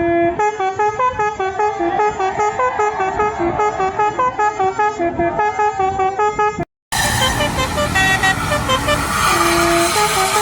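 Telolet basuri multi-tone bus horn playing a fast tune of short stepped notes. It cuts out briefly about seven seconds in, and then another horn tune starts over engine and street noise.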